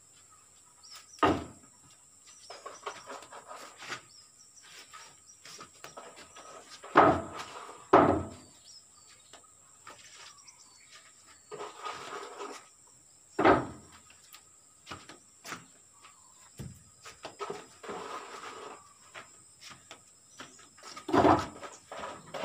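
Hand building work on a wooden plank scaffold: five or so sharp knocks, with bouts of scraping and shuffling between them, as a plastic bucket and materials are handled. A faint steady high insect drone runs underneath.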